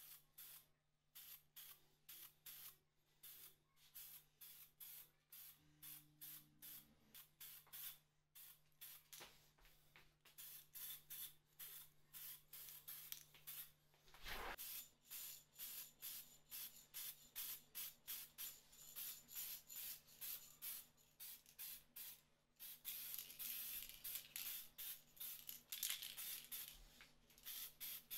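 Aerosol spray-paint can hissing in many short bursts, about two a second, as paint is sprayed onto small metal parts. A faint steady low hum runs underneath.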